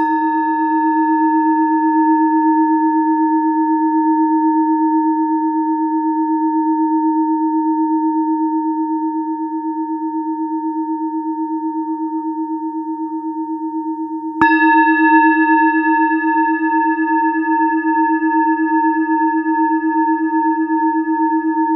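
Large hammered-metal singing bowl struck twice, once at the start and again about two-thirds of the way through. Each strike leaves a long, slowly fading ring of a low hum with several higher overtones above it. The ring wavers in a slow pulse.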